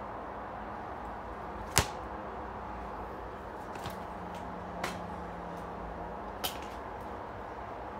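Plastic DVD case being opened: one sharp snap about two seconds in, then a few softer clicks a couple of seconds apart, over a steady background hiss.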